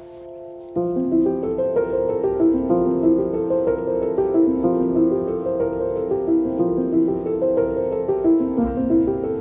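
Background music on piano: a soft held chord fades out, and just under a second in a flowing run of notes begins and continues.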